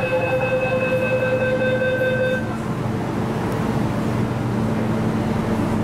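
Interior running noise of an MTR Tung Chung line K-train carriage, a steady rumble. A steady high tone with several overtones cuts off about two and a half seconds in.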